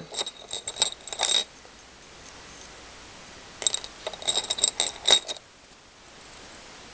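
Small beads clicking and clinking together against a hard surface, in two short bursts of rapid clicks about a second and a half each, the second starting about three and a half seconds in.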